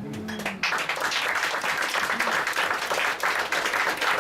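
Audience applauding, the clapping breaking out about half a second in and holding steady.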